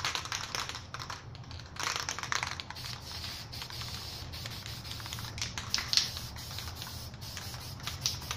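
Aerosol spray-paint can hissing in short bursts, laying down black paint, with a brief let-up about a second in.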